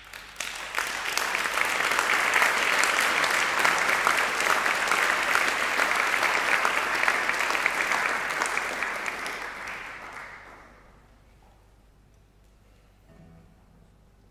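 Audience applauding: the clapping swells within about a second, holds steady, then dies away about ten seconds in.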